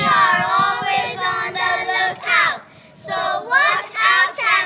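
Children singing a song in phrases, with held notes that glide in pitch and short breaks between the lines.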